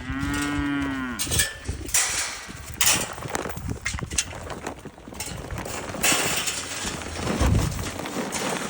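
A cow moos once at the start, a single call that rises and falls over about a second. Scattered knocks and rustling follow.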